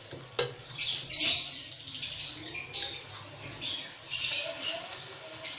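Metal spatula stirring and scraping a frying masala in an aluminium pot, with short high squeaks and a few clicks over a low sizzle.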